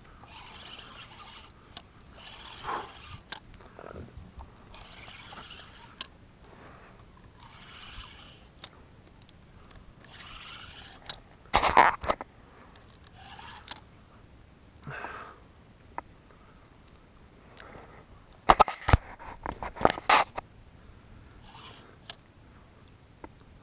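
Spinning reel cranked in short bursts of about a second each while a fish pulls on the line, with a few louder knocks and scrapes about halfway through and again about three-quarters through.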